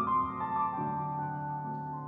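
Slow instrumental piano music: a few notes stepping downward at the start, then held notes over a sustained lower chord.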